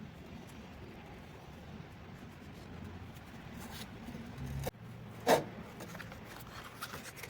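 Light scraping and rubbing, as of something being marked or handled on a workpiece, with one sharp knock about five seconds in.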